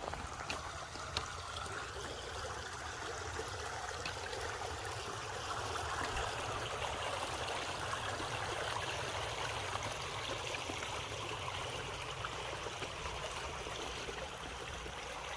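A river or creek flowing and trickling steadily, with a few faint clicks in the first few seconds.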